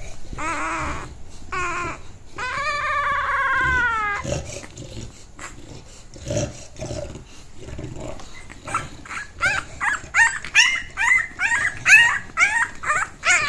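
English bulldog puppy crying: long drawn-out howling whines at first, then after a quieter stretch a rapid run of short high yelps, about three a second.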